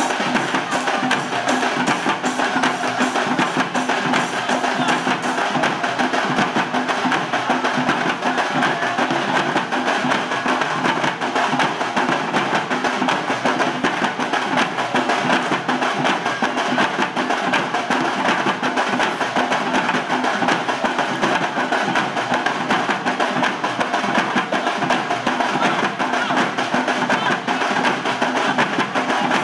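Fast, dense ceremonial drumming that goes on without a break.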